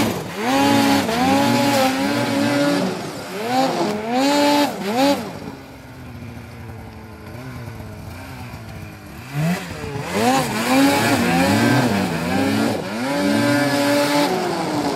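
Snowmobile engine revving hard in repeated throttle bursts, the pitch climbing and falling again and again as the sled fights through deep powder. For a few seconds in the middle the engine eases off to a lower, quieter note, then the revving picks up again.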